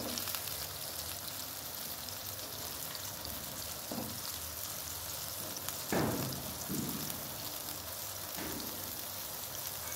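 Watery curry gravy sizzling and bubbling steadily in a pan over a raised flame, with a few soft splashes as strips of white radish are dropped in by hand. The loudest splash comes about six seconds in.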